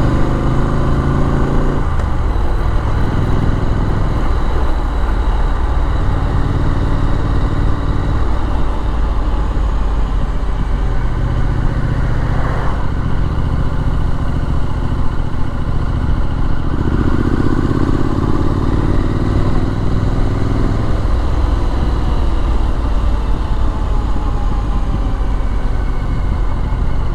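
Triumph Street Scrambler's 900cc parallel-twin engine pulling along under way over constant wind and road noise. Its pitch falls about two seconds in and climbs again later on as the rider works the throttle and gears.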